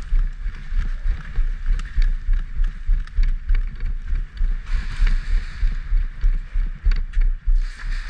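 Deep, pulsing rumble and thumps from a body-worn camera jostling as its wearer moves, with scattered sharp clicks and two short stretches of hiss.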